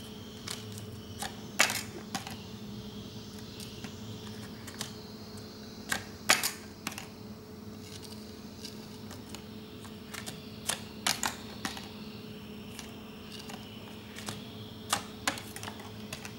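Scattered sharp clicks and taps of a paper jumping-monkey toy being pressed down by a finger and springing up to land on a tile floor, the loudest about one and a half and six seconds in. A steady low hum runs underneath.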